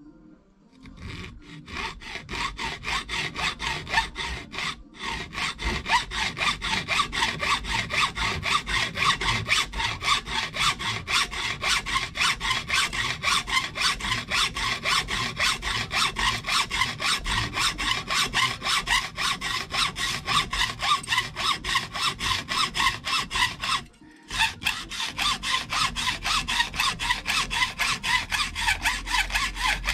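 A small hacksaw cutting through a DRO's aluminium linear scale to shorten it, in quick, steady back-and-forth strokes. The sawing starts about a second in, falters briefly near five seconds and stops for a moment about 24 seconds in before carrying on.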